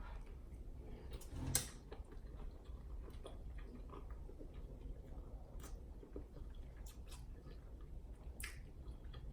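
Faint close-up chewing of food, with a few sharp wet mouth clicks scattered through.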